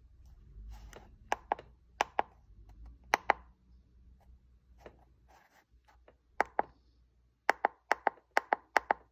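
Buttons on a Foxwell NT530 handheld scan tool clicking under a thumb, the clicks often in pairs. Near the end comes a quick run of about eight presses as it scrolls down a menu list.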